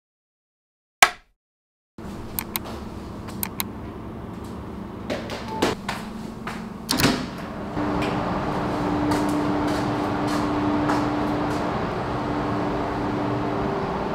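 A few sharp clicks and light knocks of things being handled, then about eight seconds in a steady hum with a low held tone begins and runs on.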